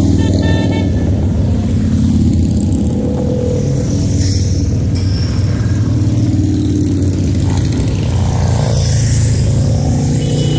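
Motorcycle engines running as a procession of bikes rides past, some of them revving.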